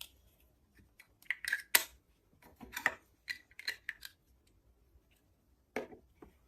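Plastic Mega Bloks building pieces clicking and knocking together as they are picked out and handled, a run of short clicks in the first part and one more near the end.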